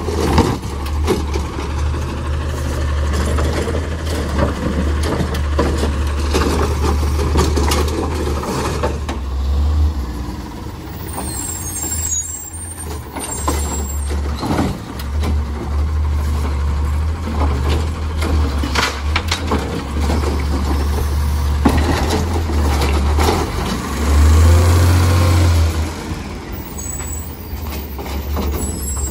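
Autocar ACX garbage truck with a Heil Rapid Rail automated side-loader, its natural-gas engine running with a steady low hum while the arm lifts and empties curbside carts. Several sharp knocks come from the carts and arm, with air-brake hisses as the truck stops and moves on. There is a louder stretch near the end.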